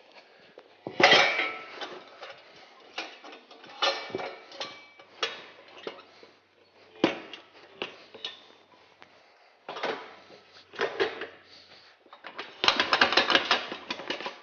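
Metal tools and wheel parts clanking and scraping against an ATV wheel rim while a tire is worked on or off: irregular clinks and knocks, some ringing, with a dense rattling run of clatter near the end.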